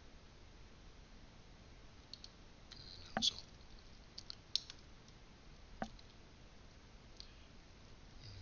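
A handful of sharp, scattered clicks from a computer mouse and keyboard over faint room noise, the loudest about three seconds in.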